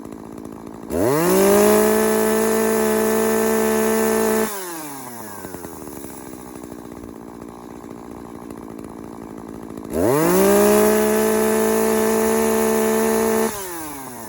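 Brand-new chainsaw idling and revved up twice to full speed, each rev held for about three and a half seconds before dropping back to idle, as its new bar and chain are run in.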